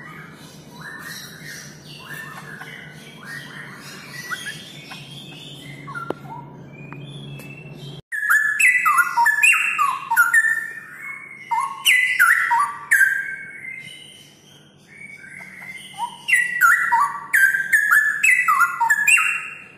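Straw-headed bulbul (cucak rowo) singing loud, rapid runs of rich whistled notes. The song cuts off abruptly about eight seconds in and resumes at once, louder, in short falling phrases.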